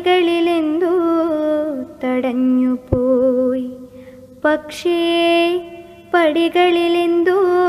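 A woman singing a Malayalam poem in the slow, chant-like melody of traditional verse recitation. She holds long notes that waver and slide between pitches, in several drawn-out phrases with short breaks between them.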